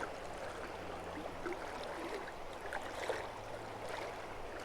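Steady rush and trickle of shallow river water flowing past, with a few faint ticks.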